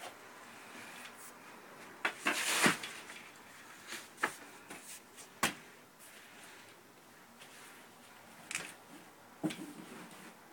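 Large paintings on canvas being handled and swapped: a few knocks and short scraping rustles as one canvas is lifted away and another set down, the loudest about two and a half seconds in.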